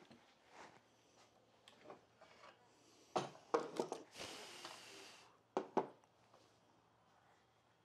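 Faint workbench handling: a locking clamp and plastic dowel jig being released from a wooden frame and set down, heard as scattered knocks and clicks, a brief rustle in the middle and two last knocks near the end.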